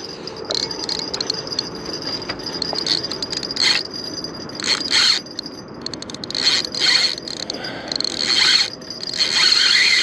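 Fishing reel's drag screaming as a big sturgeon runs and pulls line off the spool: a high, steady whine with several rasping surges.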